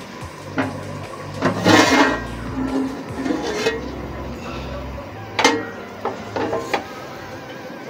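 A large aluminium pot lid is lifted off and handled, with a clatter and scrape of metal on metal about two seconds in, followed by a few sharp metal clinks and knocks. Soft background music runs underneath.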